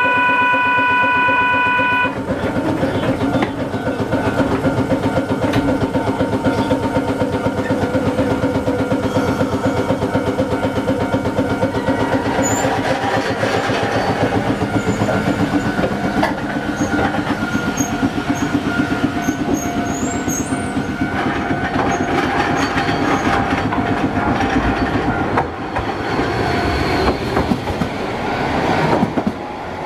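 Hankai Tramway streetcars at a station: a buzzer sounds for about the first two seconds, then a steady running rumble with wheel clatter on the rails. Near the end a rising electric-motor whine comes as the low-floor tram passes close.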